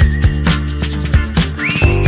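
Upbeat background music: a whistled melody over a steady drum beat and bass.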